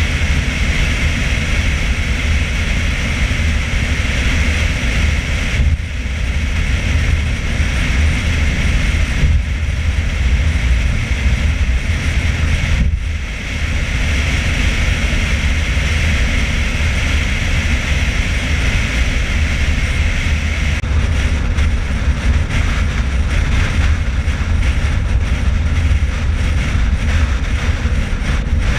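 Steady, loud rumble of wind and road noise from a car travelling at highway speed, picked up by a camera mounted outside on the hood. The rumble dips briefly twice.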